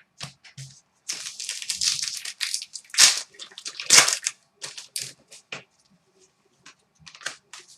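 Crinkling and rustling of trading-card pack wrappers and cards being handled. The bursts are dense and crackly for the first few seconds, then thin out to scattered light clicks.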